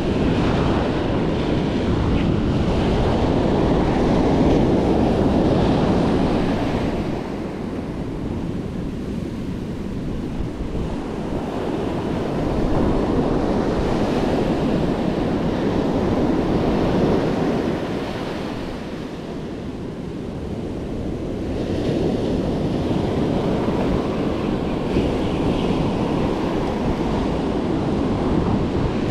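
Ocean surf breaking and washing up a sandy beach, swelling and easing every several seconds, with wind buffeting the microphone.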